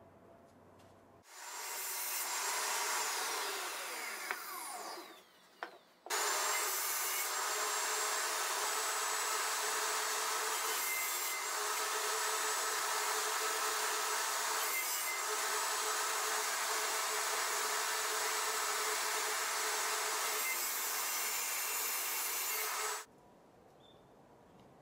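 Table saw running and crosscutting plywood on a sled. The steady motor-and-blade noise starts about a second in, dips briefly around five seconds, comes back suddenly, and cuts off suddenly a couple of seconds before the end.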